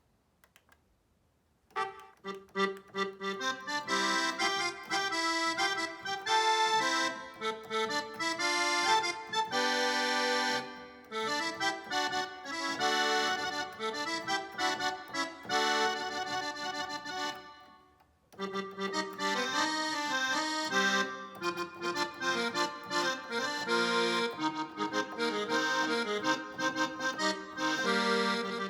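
Korg N264 synthesizer keyboard playing an accordion patch: a melody with chords that starts after a short silence and breaks off briefly about two thirds through before carrying on.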